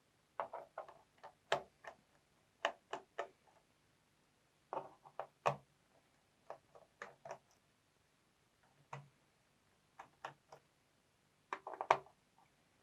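Small screwdriver backing out the bottom-cover screws of a Lenovo V510 laptop: irregular little groups of light clicks and ticks, a cluster about every second.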